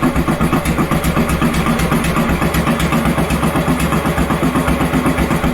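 Old Victory motorcycle's V-twin engine running steadily with an even, rapid pulsing beat. It is one of the engine's first sustained runs after being worked on.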